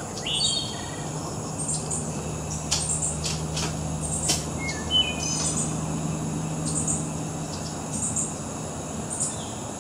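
Songbirds calling in short chirps and whistles over a steady high insect buzz and a low steady hum, with a few sharp clicks near the middle.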